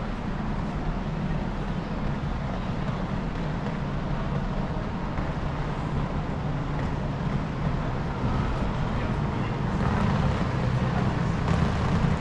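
City street ambience with steady road traffic noise, growing a little louder in the last few seconds.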